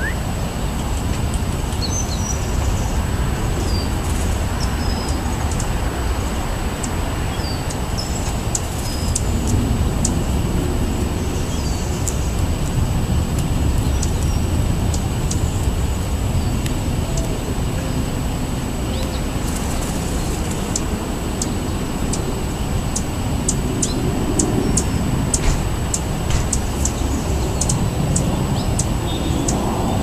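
A steady low rumble, over which small songbirds give a few short high chirps, and in the second half a run of sharp light clicks as birds peck at seed on the pavement.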